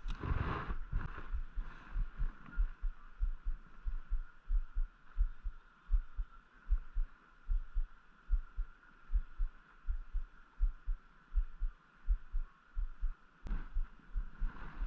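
Regular low thuds, about two to three a second, over the steady rush of running creek water.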